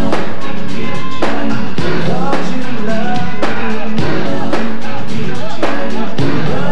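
Up-tempo dance music with singing over a steady drum beat of about two beats a second.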